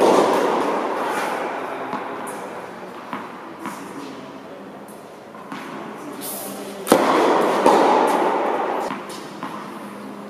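Tennis rally on an indoor court: sharp pops of the ball off racket strings, the loudest about seven seconds in, with fainter hits and bounces from the far side of the court. Each hit leaves a long echo in the hall.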